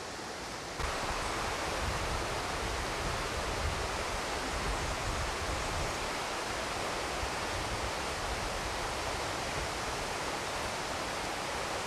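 Wind buffeting an outdoor camcorder microphone: a steady rushing hiss with an uneven low rumble, stepping up in level about a second in.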